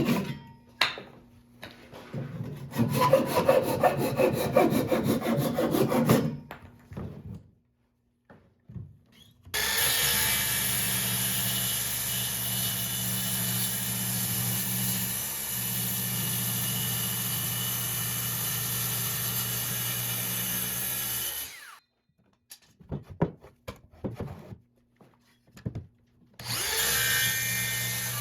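Woodworking on oak: a few seconds of quick sawing strokes, then an electric power tool running steadily for about twelve seconds before it stops abruptly. A few knocks of wood follow, and a power tool starts up again near the end.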